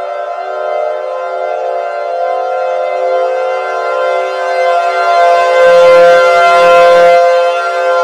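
Civil defense siren sounding steadily, several tones at once. About five and a half seconds in, a burst of noise with a low rumble joins it for over a second, the loudest part.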